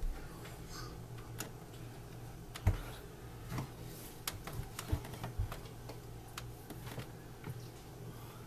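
Irregular small clicks and taps as fingers press the buttons and handle the case of a digital picture frame, with one louder knock about two and a half seconds in, over a low steady hum.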